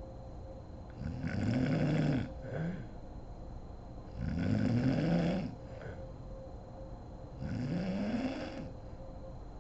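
A sleeping woman snoring: three long snores about three seconds apart, each rising in pitch, with a short snort just after the first.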